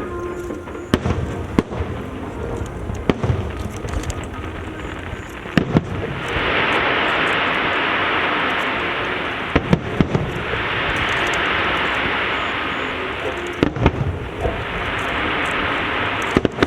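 Fireworks display: scattered sharp booms of shells bursting, then, from about a third of the way in, three long stretches of dense crackling hiss, each lasting a few seconds, with more booms between them.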